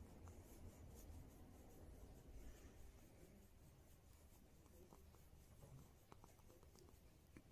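Very faint scratching of fingers rubbing a cat's fur under its chin, over a low rumble; otherwise near silence.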